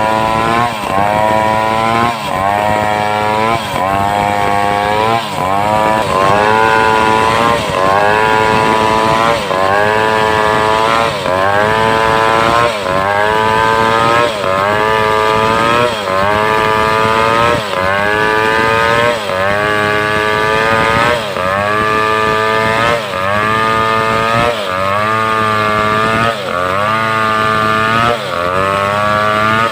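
Homemade two-stroke chainsaw ripping a mindi log lengthwise, the engine working under load. Its pitch dips sharply and climbs back in a steady rhythm, about once every 1.7 seconds.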